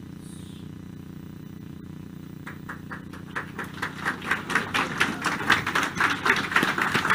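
Audience applause: a few separate claps about two and a half seconds in, quickly building into dense, louder clapping over a low steady hum.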